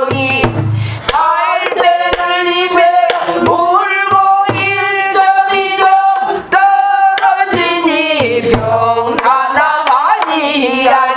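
A woman singing pansori in long held, bending notes, accompanying herself on a buk barrel drum: sharp clicks from the drumstick and low thuds from the drum head fall between and under her phrases.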